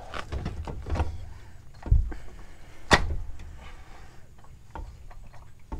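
CV axle being pushed by hand into the transmission's differential side with the splines lined up: scraping and low handling noise, a low thump about two seconds in and a sharp knock a second later.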